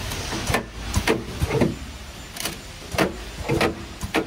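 CNC aluminum window corner-assembly machine at work: about seven sharp mechanical clacks at irregular intervals as its clamping and positioning parts move, over a steady low machine hum.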